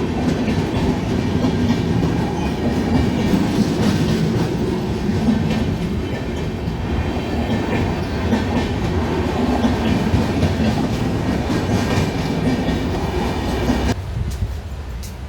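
Train passing close by at a level crossing: a loud, steady rumble of wheels on the rails that drops off suddenly near the end as the last coach goes past.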